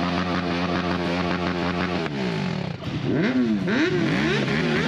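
Motorcycle engines running, with one bike revved up and down about three times in the second half.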